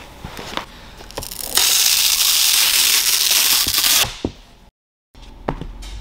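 A few sharp clicks and knocks of tools being handled, then a loud, steady rush of air, about two and a half seconds long, that cuts off suddenly.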